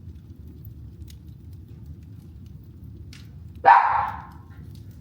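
A dog barks once, loudly, about two thirds of the way in, over the low steady rumble and faint crackle of a wood fire burning in a fireplace.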